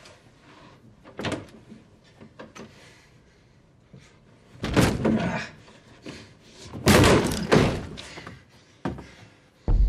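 Interior doors being thrown open and banging: a few light knocks, then two heavy slamming clusters about five and seven seconds in, and one more knock near the end.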